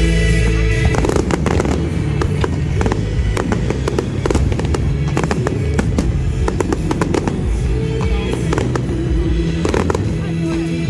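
Aerial fireworks bursting in quick succession, with many sharp cracks and crackles coming thick from about a second in. Loud music plays underneath.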